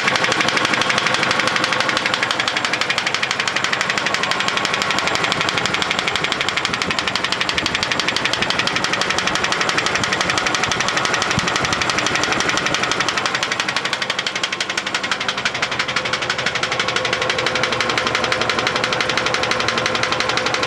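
GAZ-24 Volga engine running with a rapid, steady knocking in time with the engine's rotation: the knock whose cause the owner is asking the forum about.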